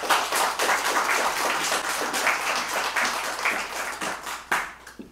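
Audience applauding, a dense patter of many hands clapping that dies away with a few last claps about four and a half seconds in.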